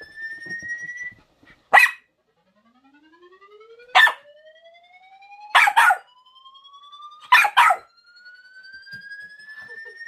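A small mixed-breed dog barks at a played sound effect, a rising whistle-like tone that climbs slowly and steadily in pitch. The dog gives a single bark, another single bark, then two quick double barks as the tone keeps rising.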